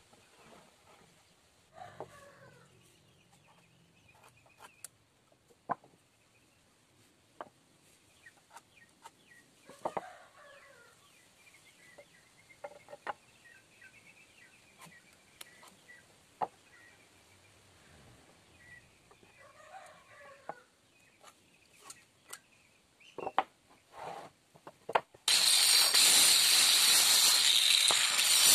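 Chickens clucking now and then, with scattered light taps and knocks of wooden pieces being handled. About 25 seconds in, a hand-held electric saw starts cutting a small block of wood, loud and steady.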